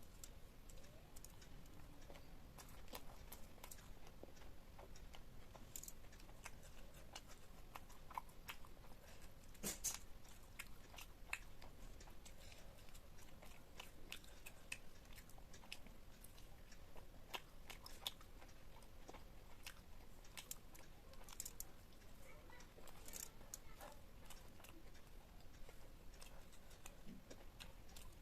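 Chewing and biting food, with many short crisp crunches and clicks scattered throughout and a louder cluster about ten seconds in.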